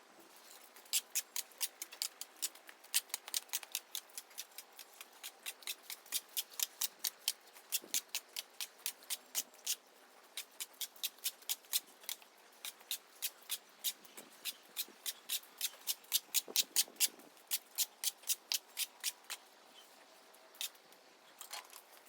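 A steady series of sharp, light clicks or taps, about three a second, stopping near the end.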